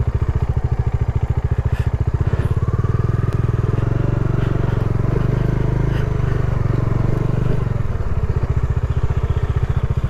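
Bajaj Dominar 400 motorcycle's single-cylinder engine running at low revs with an even, pulsing beat. The note rises a little from about three seconds in and eases back near eight seconds.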